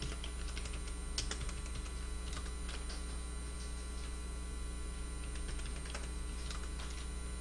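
Steady electrical mains hum with a few scattered computer keyboard keystrokes as G-code is typed.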